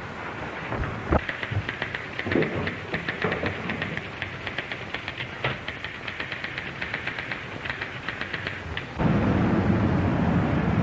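Typewriter keys clattering in quick irregular runs, with a thump near the start. About nine seconds in this cuts suddenly to a louder, steady low rumble.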